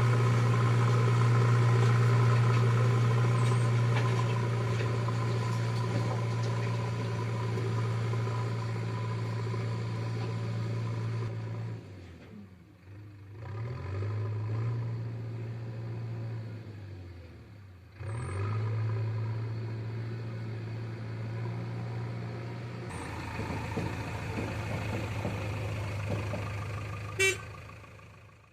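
Diesel engine of a JCB backhoe loader running steadily. Twice it drops in level and pitch, then picks back up. A short sharp click comes near the end.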